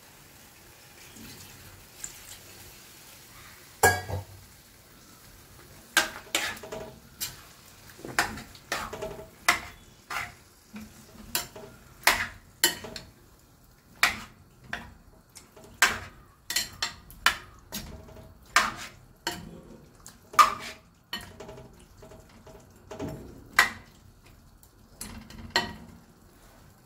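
Metal spoon stirring chicken curry in a stainless steel pan, clinking and knocking against the pan's sides. The clinks start about four seconds in and come irregularly, about one or two a second.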